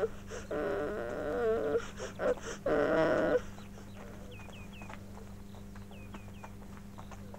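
Puppy whining in several drawn-out, wavering cries. After about three and a half seconds it goes quieter: light ticks like footsteps, and a small bird chirping in two quick runs of three.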